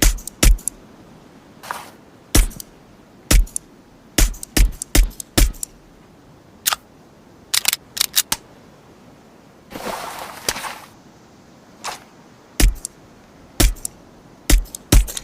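Suppressed Heckler & Koch USP Compact pistol firing about twenty shots, some single and some in quick runs of two to four, each a sharp crack. About ten seconds in there is a rough noise that lasts about a second.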